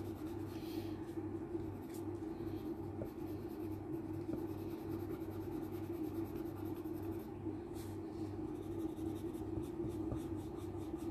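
Coloured pencil rubbing and scratching on drawing paper as it shades in soft strokes, over a steady low hum.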